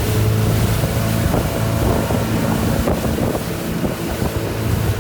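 Motorboat engine running at a steady pitch under way, with wind buffeting the microphone and water rushing past.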